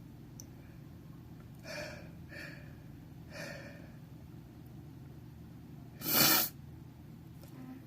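A person building up to a sneeze: three short gasping breaths, then one loud, sharp sneeze about six seconds in.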